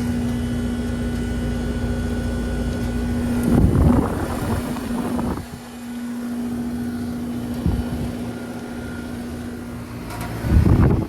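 Heat pump outdoor units running in heating mode: a steady compressor hum over the rush of the condenser fans. Two louder rushing noises come through, one about four seconds in lasting a second or two and a shorter one near the end.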